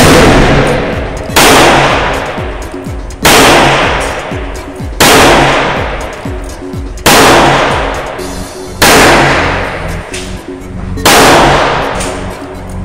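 Ruger Speed Six revolver firing .38 Special 148-grain copper-plated wadcutter handloads in slow, aimed fire: loud shots every one and a half to two seconds, each ringing out in the indoor range's echo. Background music plays underneath.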